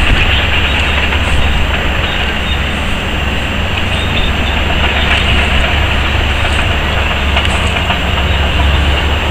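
Heavy diesel engines of a Cat 385 hydraulic excavator and a Cat haul truck running steadily at a loading face, a constant low rumble with no let-up.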